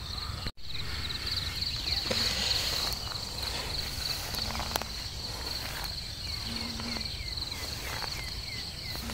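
Insects trilling steadily in a high, finely pulsing chorus, over low rustling and a few light clicks from handling near the ground. A run of short falling chirps sounds near the end.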